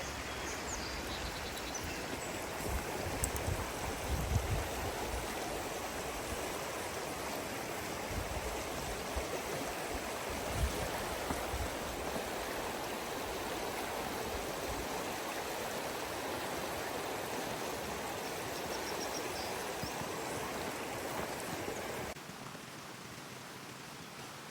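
Creek water running steadily, with a few low thumps in the first half; the water sound drops in level near the end.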